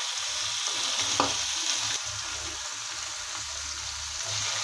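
Marinated fish steaks sizzling steadily in a little oil on a flat tawa while they are turned over with a metal spatula, with a short knock of the spatula about a second in.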